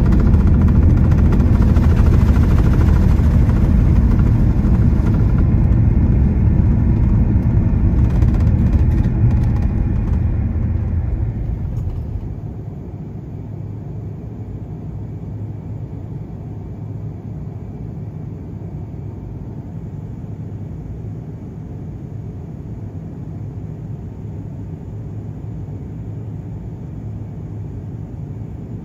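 Loud rumble inside the cabin of an SAS Airbus A330-300 rolling out on a wet runway just after landing. About ten seconds in it fades into the steady, much quieter cabin drone of an Airbus A350-900 descending with its Rolls-Royce Trent XWB engines.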